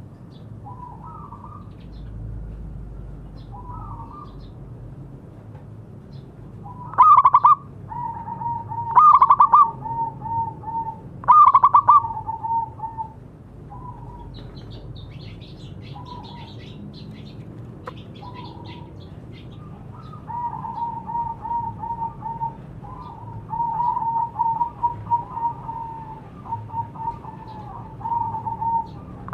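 Zebra doves (perkutut) cooing: phrases of a loud opening note followed by a quick run of short, even coos, repeated several times, with a longer stretch of rapid cooing near the end.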